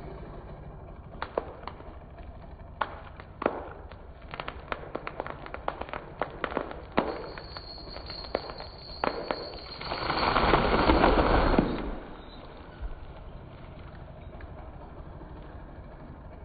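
A large dead tree's hinge wood cracking and popping in a quickening run of sharp snaps as the tree tips over, then the tree crashing to the ground, the loudest part, for about two seconds, about ten seconds in. A steady low engine hum runs underneath.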